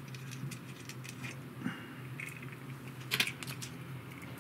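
Light scattered clicks and taps of small parts and hand tools being handled at a workbench, with a louder cluster of clicks about three seconds in, over a low steady hum.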